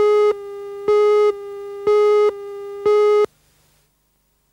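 Electronic countdown tone: one steady pitched tone that jumps louder for a short beep about once a second, four times, then cuts off about three seconds in.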